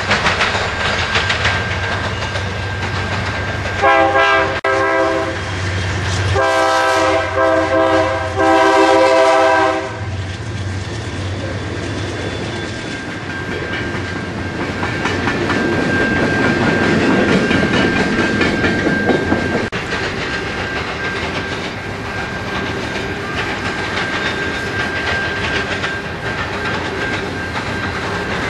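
Diesel-hauled freight trains rolling past, the freight cars clattering over the rail joints. A locomotive air horn sounds a chord in a short blast about four seconds in, then a longer blast of about three and a half seconds.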